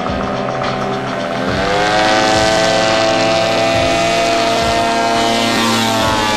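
Small UAV's propeller engine throttled up for the takeoff run. Its pitch rises about a second and a half in, then holds a steady high note.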